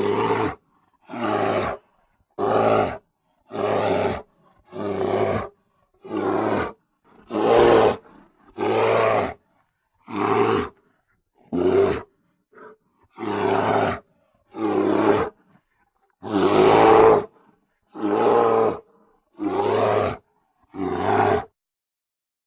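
Grizzly bear roaring: a series of about fifteen short, loud roars, each under a second, separated by brief silences.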